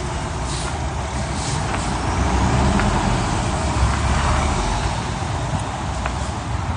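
Road traffic on a city street: a steady rumble of passing vehicles that swells louder for a couple of seconds in the middle.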